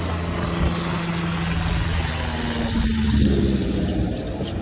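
Light propeller aircraft engine droning in several low steady tones, with its pitch rising about three seconds in.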